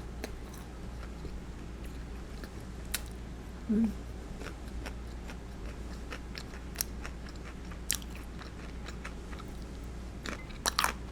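Close-up eating: chewing and biting into crisp food, with scattered crunches and a cluster of crunches near the end. A brief closed-mouth hum comes about four seconds in.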